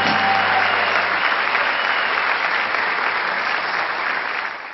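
A large concert audience applauding as the final chord of the song ends. The applause is steady and full, then fades away near the end.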